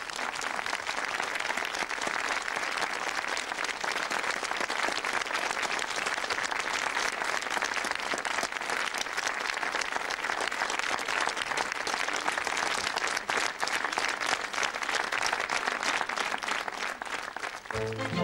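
Studio audience applauding, a dense, steady clapping. Near the end it gives way to music.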